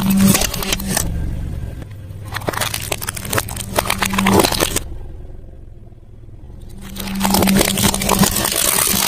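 Crunchy food being bitten and chewed close to the microphone in three spells of loud crackling crunches, with quieter pauses between them.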